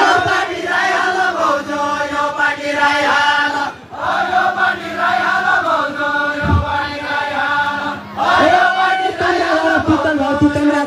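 A group of voices chanting a deuda folk song together in phrases of about four seconds, with short breaks about four and eight seconds in.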